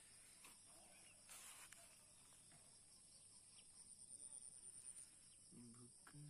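Near silence: faint outdoor ambience with a steady high-pitched insect drone, and a short low call or voice near the end.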